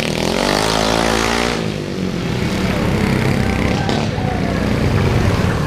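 Mini bike engines running hard in a race. One engine's note swings up and back down in the first second and a half, and after that several engines run together.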